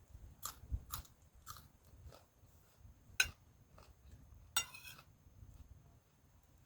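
A person chewing and biting food: soft mouth clicks about every half second, a sharp click about three seconds in, and a longer crunchy burst about four and a half seconds in.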